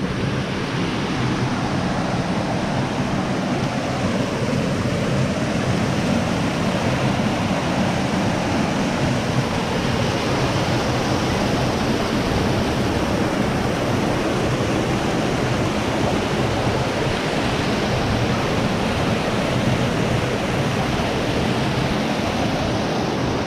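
Creek water rushing steadily through a narrow rock gorge, churning white as it pours into a pool below.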